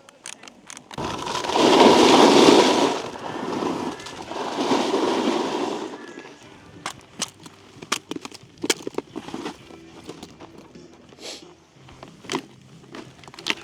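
Snowboard edge scraping over icy, hard-packed snow in two long swells, followed by scattered clicks and knocks.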